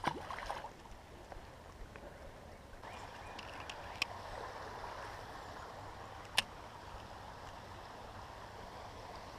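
Small creek flowing, a steady trickle of water that grows a little louder about three seconds in. A short sound at the start and two sharp clicks later on.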